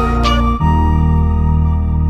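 Background music. About half a second in, the percussive beat drops away and sustained chords carry on over a gently pulsing bass.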